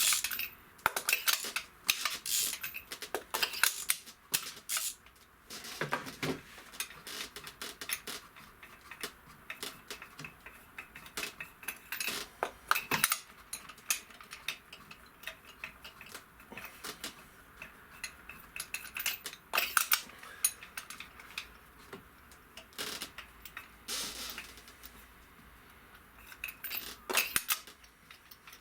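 Metal hand tools and spark plugs clinking and clicking while spark plugs are unscrewed from a switched-off engine's cylinder head: irregular sharp clinks, busiest in the first few seconds, then in scattered groups.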